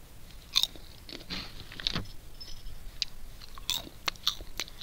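Popcorn being bitten and chewed, a string of irregular crisp crunches.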